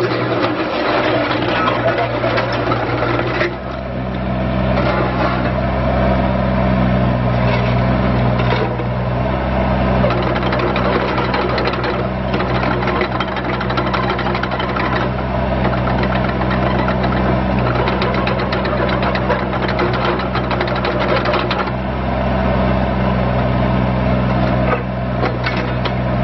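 Hitachi ZX30U-3 mini excavator's diesel engine running steadily under load, with the mechanical clatter of the hydraulics as the upper structure swings and the boom, arm and bucket are worked. The load eases briefly twice, about three and a half seconds in and near the end.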